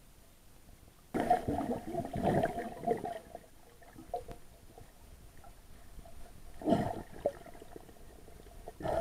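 Muffled underwater splashing and bubbling from snorkelers swimming close by, heard through an action camera's waterproof case: a long burst about a second in, then two short ones later.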